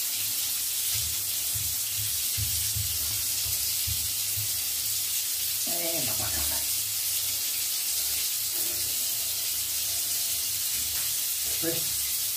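Running water hissing steadily in a bathtub, as from a shower hose, while a wet Yorkshire terrier is lathered by hand. A short falling voice-like sound comes about six seconds in.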